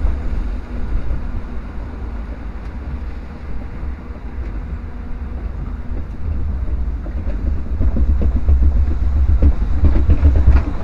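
Log flume boat travelling along its water channel: a steady rush of water and wind rumbling on the microphone, growing louder in the last few seconds.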